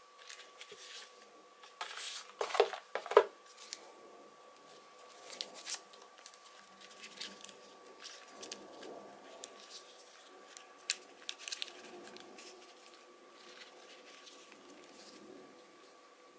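Hands handling a pair of Bose QuietComfort 35 II headphones and their hard carrying case. There is a cluster of sharp clicks and knocks about two seconds in, then lighter rubbing and scattered ticks as the headphones are turned over and unfolded. A faint steady high hum runs underneath.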